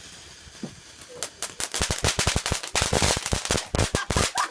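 Firecrackers going off in a rapid string: scattered sharp cracks about a second in, building into a dense, irregular rattle of around ten bangs a second.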